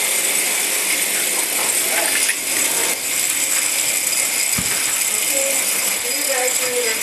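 Several Hexbug Bobble Bots buzzing and rattling across a hard floor, their little vibration motors making a steady, high-pitched rattling hiss.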